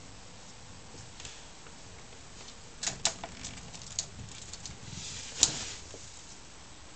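Cats pawing and batting at a mesh window screen: a few sharp taps and scratches from about three seconds in, the loudest about five and a half seconds in.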